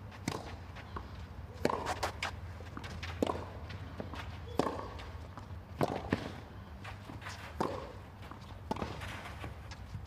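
Tennis rally on a clay court: a serve and then racquets striking the ball back and forth, about seven hits roughly a second and a half apart, with the players' footsteps on the clay between them.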